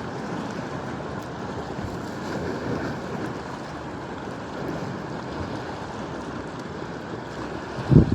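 Sea waves washing on the shore as a steady rush, with wind on the microphone. There is a short, louder low buffet near the end.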